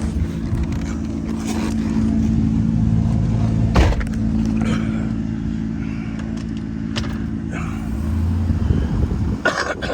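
A vehicle engine running steadily, with a few clicks and a sharp knock about four seconds in.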